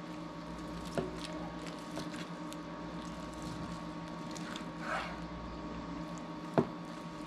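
Knife slicing through a juicy smoked brisket point: soft wet squishing, with a few sharp knocks, the loudest near the end. A steady low hum runs underneath.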